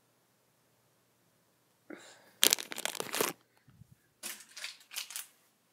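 Crinkling and rustling of snack packaging being handled while rummaging for food: one longer spell of rustle about two seconds in, then a few shorter bursts near the end.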